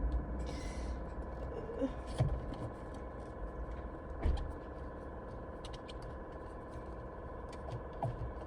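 A few light knocks and scrapes of a screwdriver and loose parts being handled at a steering wheel, over a steady background hum. A short hiss comes just after the start, and the two clearest knocks come about two and four seconds in.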